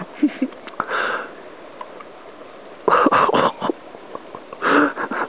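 A person's short breathy sniffs and snorts, three times, mixed with sharp clicks of an aluminium soda can being handled.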